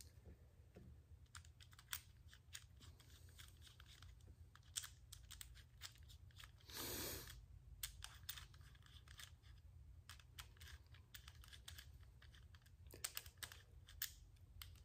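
Faint, scattered small clicks and ticks of a screwdriver starting the small cap screws of a clamshell scope ring, metal on metal, left loose. A short soft hiss about seven seconds in.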